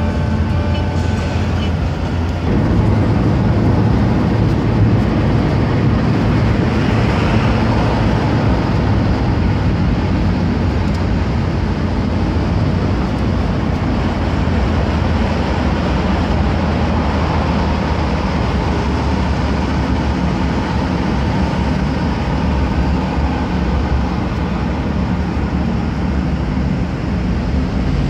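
Steady road noise inside a moving car's cabin at highway speed: tyre rumble and engine drone. It gets a little louder about two seconds in and then holds steady.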